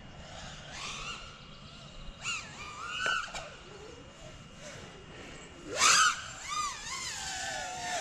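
FPV racing quadcopter's motors whining, the pitch swooping up and down with the throttle in several bursts, the loudest about six seconds in.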